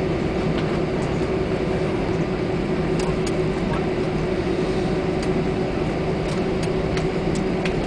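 Steady cabin noise of an Airbus A320 airliner heard from inside the cabin: a constant engine hum with a clear steady tone over a broad rushing noise, and a few faint ticks.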